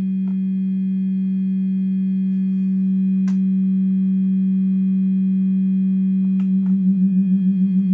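Steady single-pitch test tone from a signal generator playing through a 1961 Fender Showman tube amp, with a few faint clicks as its knobs are turned. About six and a half seconds in, the tone begins pulsing rapidly and evenly in volume as the amp's vibrato effect is turned up.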